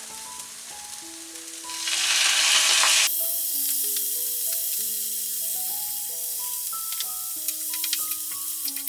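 Pork cubes marinated in soy sauce and lime going into a pan of hot olive oil with onions and garlic. The sizzle surges loudly about two seconds in, eases after about a second, then carries on as a steady frying hiss with a few light taps. Soft background music plays throughout.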